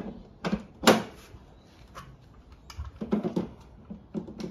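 Plastic clacks and clicks of 18V LXT batteries being slid into the battery bay of a Makita DLM532 cordless lawn mower and latching home: a series of sharp, separate knocks, the loudest about a second in, with a quick cluster a little after three seconds.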